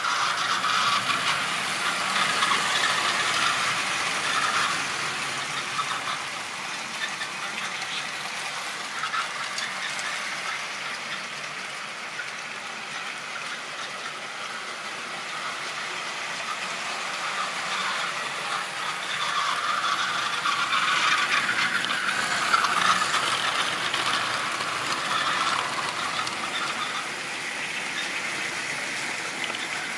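Model train running on the track: a small electric motor whirring and the wheels rattling and clicking along the rails, growing louder twice.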